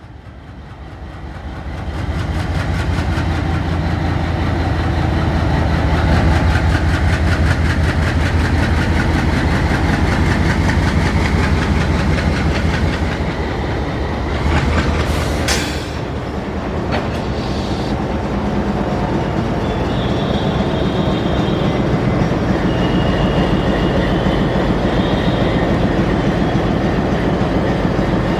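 ALCo WDM3A diesel locomotive with its 16-cylinder ALCo engine pulling a train away and gathering speed: the engine runs hard under a low throb while the wheels clatter over the rail joints. About halfway through, the engine note drops and there is a brief hiss, consistent with an alarm chain pull during the first acceleration. The train then runs on with faint high squealing tones.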